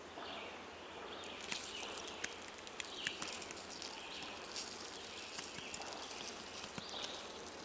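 Faint outdoor nature ambience: a soft steady hiss with scattered small clicks and faint chirps.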